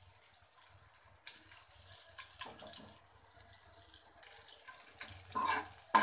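Pieces of edible gum (gond) frying in desi ghee in a kadhai, a faint sizzle and crackle, with a steel ladle scraping and clinking against the pan a few times, louder near the end.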